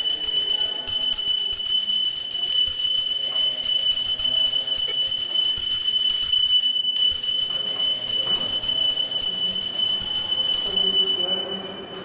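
Small brass hand bell rung rapidly and without pause during aarti worship: a steady high ringing with fast clapper strikes. It breaks off briefly about seven seconds in, then resumes and fades out near the end.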